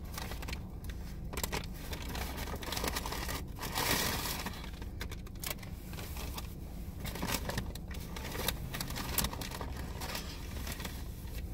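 Crinkling and rustling of paper fast-food packaging being handled, in short irregular crackles with a longer rustle about four seconds in, over a low steady hum.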